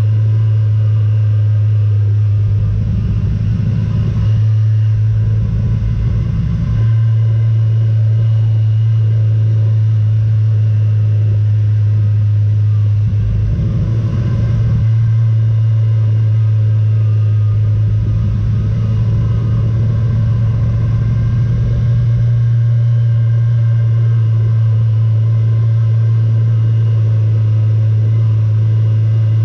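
Motorcycle engine running at steady revs while riding, a constant low drone, with bouts of low wind rumble on the microphone a few times.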